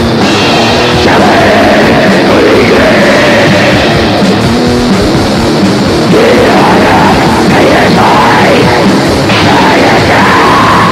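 Black metal recording: heavily distorted guitars and drums playing loud and dense, with a harsh screamed vocal over them.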